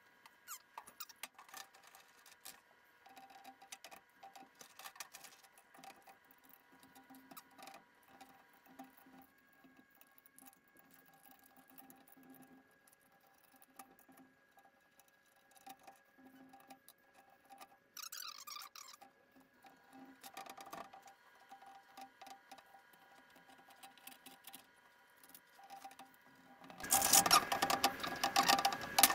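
A metal hand tool scraping and tapping along the edge of fresh grip tape on a scooter deck as the tape is trimmed: light scratches and clicks, then a loud, rough scraping near the end.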